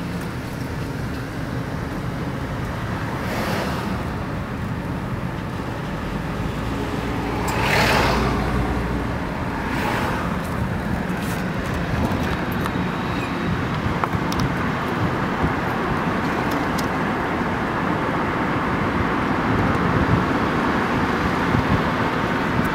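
Road and tyre noise of a car driving, heard from inside the cabin, with other vehicles passing by about three and a half, eight and ten seconds in, the one near eight seconds the loudest.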